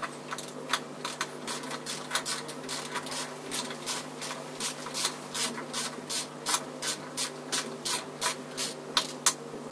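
Hand tools working metal: a run of short, sharp clicks and clinks at uneven spacing, a few a second, as exhaust fastenings on a Suzuki GT750 two-stroke engine are undone, over a steady low hum.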